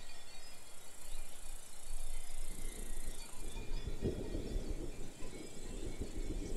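Insects chirring steadily in a grassy summer meadow, with a low noisy rumble joining in from about the middle.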